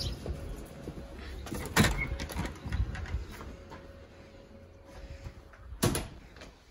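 A front door is worked: a sharp latch knock about two seconds in, then the door shutting with a knock near the end. The background noise from outside then fades.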